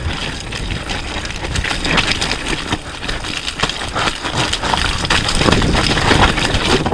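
Mountain bike descending a rough, wet trail: a continuous clatter of tyres, chain and frame over rocks and mud, with many sharp knocks.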